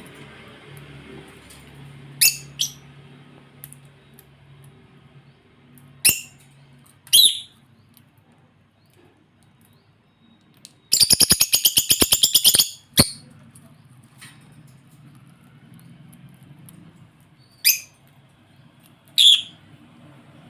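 African lovebirds giving short, shrill calls, single or in pairs, with a fast chattering run of calls lasting about two seconds midway through.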